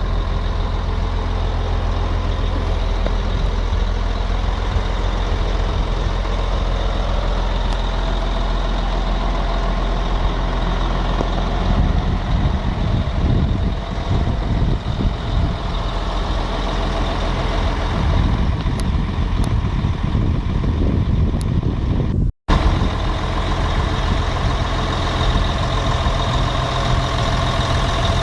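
Caterpillar 966H wheel loader's diesel engine running steadily, its note wavering for several seconds in the middle. The sound cuts out for an instant about 22 seconds in.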